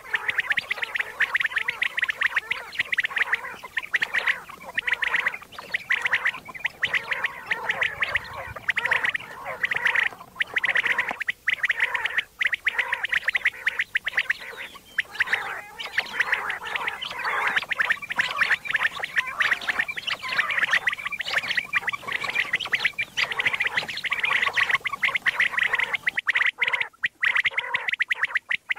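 Common quail calling: a dense, unbroken stream of rapid chattering calls, with a few brief breaks.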